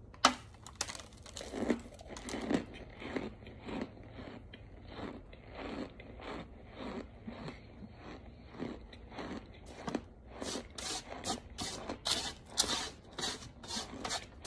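A bite into a chunk of cornstarch with a sharp crunch, then steady crunchy chewing of the mouthful at about two chews a second. After about ten seconds the chews turn crisper and a little quicker.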